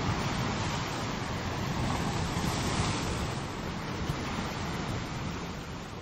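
Ocean surf breaking and washing over a rocky shore in a steady rush, swelling about two seconds in and easing off near the end.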